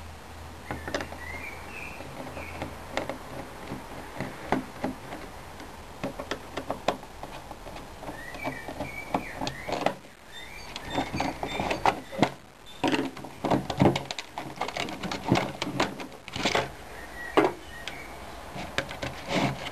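Parts of a disassembled plastic ionizer air freshener being handled: irregular clicks, taps and knocks, thicker in the second half.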